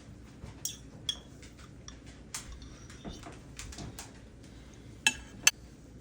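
Utensils clinking and clicking: scattered light clinks, with two sharp, louder clicks about half a second apart near the end.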